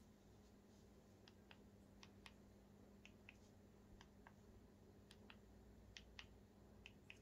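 Faint clicks of the Echo Dot (4th gen) top buttons being pressed and released, in pairs about a quarter second apart, roughly once a second, over a low steady hum.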